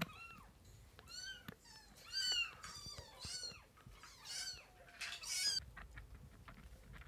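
Young kitten mewing at the bottle, about six short, high cries that rise and fall in pitch over the first five seconds or so, then only faint clicks near the end.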